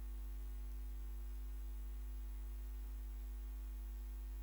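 Steady low electrical hum with a faint hiss, unchanging, with no other sounds.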